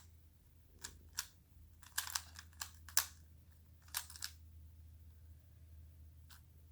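Plastic Rubik's Cube being turned by hand, its layers clicking in short bursts of quick turns with pauses between, and a single click near the end.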